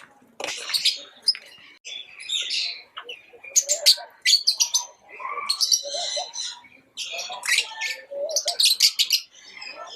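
Lovebirds chirping and chattering in quick, shrill bursts of rapid chirps, one after another.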